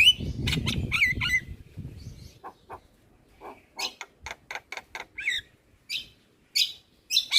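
Javan myna calling: a chattering run of short, sharp squawks and whistled notes over a low rumble for the first two seconds, then spaced single calls, one sliding down in pitch.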